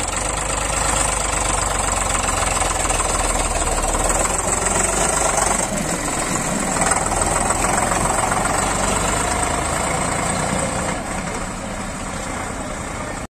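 Eicher 485 tractor's diesel engine running steadily under load, pulling a trolley heaped with soil.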